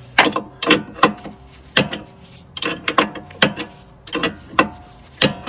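A 24 mm spanner turning the adjuster on an adjustable camber arm makes about a dozen sharp metallic clicks, coming unevenly every half second or so. The adjuster is being wound to push the wheel out and set the camber.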